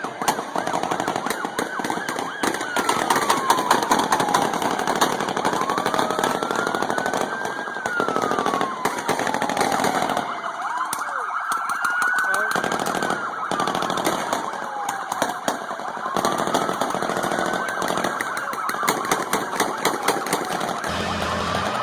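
A wailing siren that slowly rises and falls, one cycle about every five seconds, over a dense stream of rapid clattering impacts.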